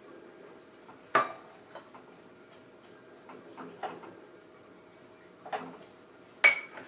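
A metal measuring cup and a stainless saucepan clinking as brown sugar is knocked into the pan: about four sharp, irregularly spaced clinks. The loudest comes near the end and rings briefly.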